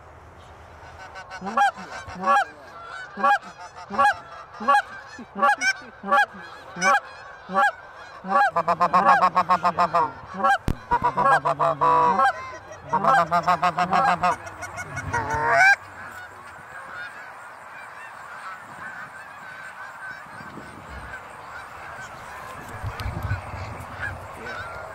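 Hunter blowing a Canada goose call, calling to an incoming flock of geese. It gives a string of single honks, a little over one a second, then two fast runs of rapid clucking notes. The calling ends about 16 seconds in with a rising note, leaving a quieter steady background.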